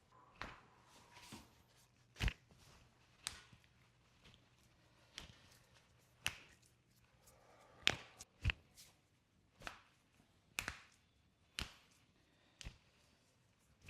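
A run of short, sharp clicks and taps from hands working on a patient's body during chiropractic treatment, coming roughly once a second, with the loudest a couple of seconds in and about eight seconds in.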